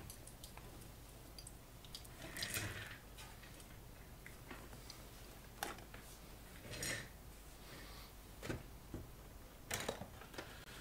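Faint handling noises: about five short rustles and light clicks, the longest about two and a half seconds in, over a steady low hum.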